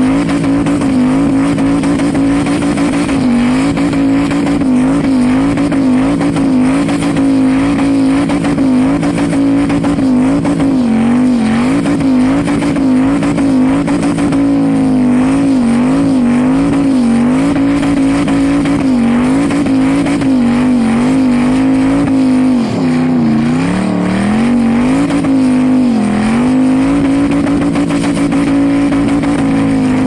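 Turbocharged LS V8 held at high revs through a long burnout, its pitch wavering slightly as the throttle is worked and dipping twice briefly near the end before climbing back, while the rear tires spin and smoke.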